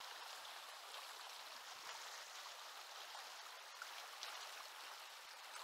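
Shallow river riffle rushing over rocks, a steady, even rush of water.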